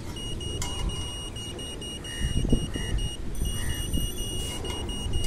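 Satellite finder meter beeping: a rapid series of short, high beeps, about five a second, that merge into one steady tone for about a second midway and then break back into beeps. The beeping follows the signal strength while the dish is being aimed.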